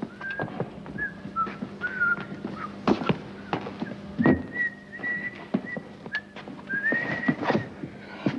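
A string of short, high whistled notes, some wavering or sliding, with one note held for about a second midway and a rising glide near the end. Scattered knocks and taps and a steady low hum run beneath.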